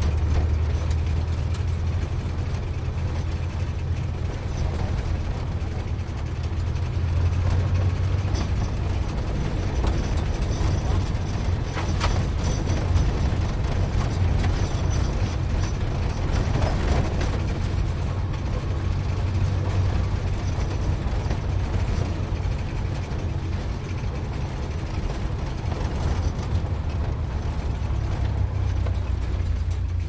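Sports car driving, its engine a steady, deep low rumble.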